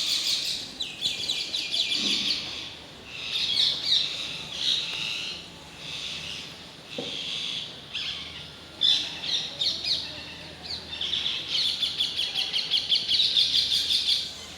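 Parakeets calling from a tree in repeated bouts of shrill, rapid chattering notes, several birds overlapping, with short pauses between bouts and a longer stretch of chatter near the end.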